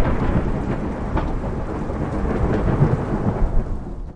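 Low, rumbling noise with scattered faint crackles, the sound effect of an animated end-screen template; it fades out at the very end.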